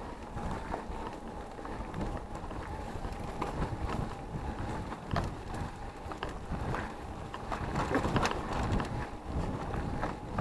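Electric mountain bike ridden over rough dirt singletrack: wind buffeting the microphone, tyres rolling on dirt and the bike rattling and knocking over bumps, under a steady thin whine from its motor.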